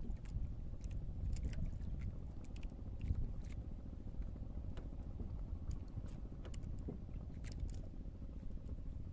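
Steady low rumble of wind and water around a small fishing boat at sea, with scattered light clicks and knocks.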